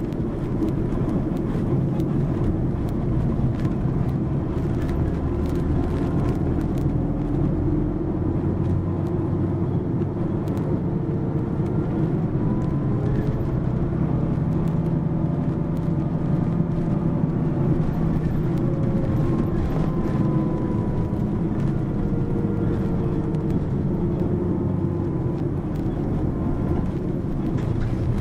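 Mitsubishi Fuso PA-MK25FJ diesel city bus under way, its engine running steadily with a whine that rises and falls in pitch a few times as it pulls and eases off.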